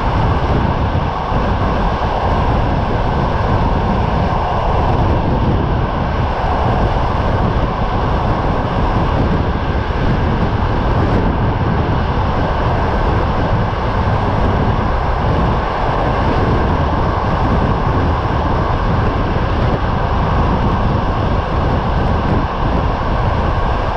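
Passenger train running at speed, heard from an open carriage window: a steady rumble of wheels and train noise with wind buffeting the microphone.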